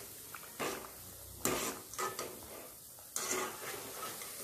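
Bread squares sizzling as they deep-fry in hot oil in a metal kadai, while a metal slotted spoon stirs and lifts them, scraping against the pan in about four short, sharp strokes.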